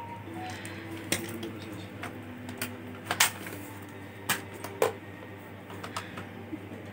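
A screwdriver and small screws clicking and tapping against a laptop's plastic casing while it is being taken apart. There are several sharp, separate clicks, the loudest a little after 3 seconds in and near 5 seconds in.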